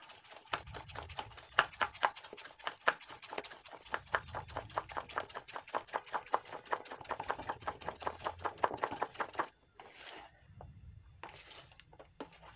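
A spoon beating thick gram-flour (besan) batter against a stainless steel bowl, in quick, even strokes that click and slap, stopping near the end.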